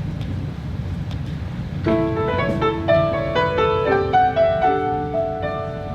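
Piano introduction to a show tune begins about two seconds in, with sustained chords and a melody line. Before it there is only a low steady hum.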